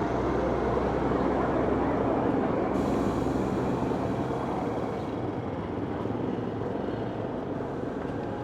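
City street traffic noise: a steady low rumble of a passing vehicle, loudest in the first few seconds and easing off after about five seconds.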